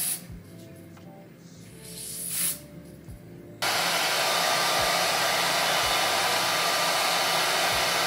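Two short hisses from an aerosol can of lace-holding spray near the start and about two seconds in. About three and a half seconds in a hair dryer switches on suddenly and blows steadily, drying the lace glue.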